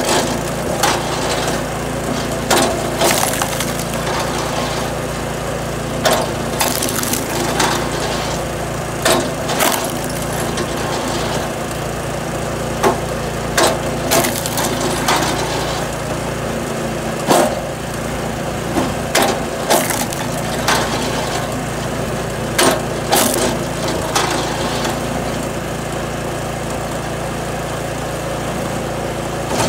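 Small engine of a log splitter running steadily, with irregular sharp wooden knocks and cracks every second or two as firewood rounds are split and the split pieces knock against the table.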